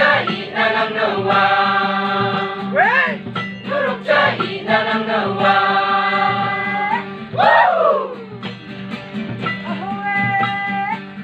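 Mixed choir of young men and women singing a Garo-language song together, with long held notes and voices sliding down in pitch about two-thirds of the way through.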